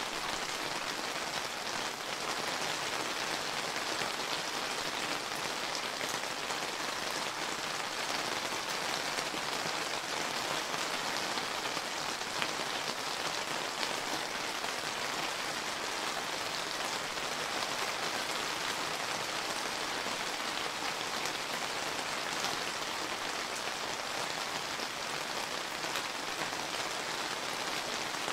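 Steady summer rain falling on surfaces, an even hiss of countless small drops pattering.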